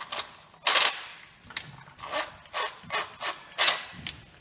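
Irregular mechanical clicks and rattles, about six or seven sharp bursts in a few seconds: tools and parts being handled during a refrigerator repair, with a faint steady high whine underneath.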